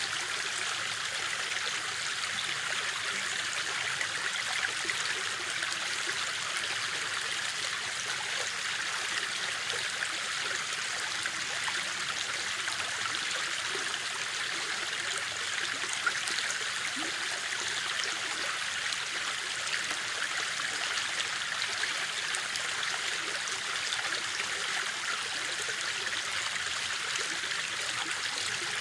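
Stream water running steadily and evenly.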